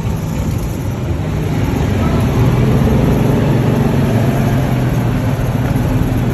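Golf cart driving through a concrete underpass tunnel: a steady low drone from the cart and its tyres, growing a little louder about two seconds in.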